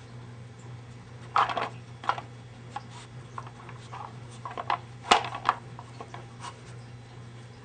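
Hard plastic tiers of a Nina Ottosson Dog Tornado puzzle toy clicking and knocking as a dog noses and pushes them around to get at treats: irregular clicks and clatters, a cluster about a second and a half in and the loudest knocks around five seconds in.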